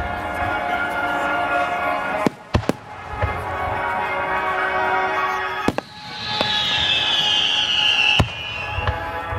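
Fireworks display: aerial shells bursting with sharp bangs, two close together about two seconds in, another near the middle and one near the end. Before the last bang, a loud whistle falls slowly in pitch for about two seconds.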